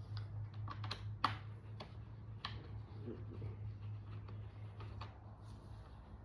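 Scattered light clicks and taps of metal hardware as bolts are tightened on a bar stool frame with a T-handle wrench, the sharpest about a second in. A steady low hum runs underneath.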